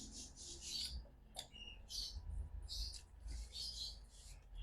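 A person chewing food: a run of soft, wet mouth smacks and clicks, about three a second.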